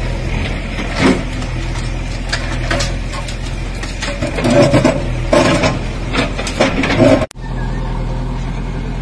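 JCB backhoe loader's diesel engine running steadily while its bucket tears at a concrete-and-brick building: repeated crashes of breaking masonry and falling rubble, heaviest from about four to seven seconds in.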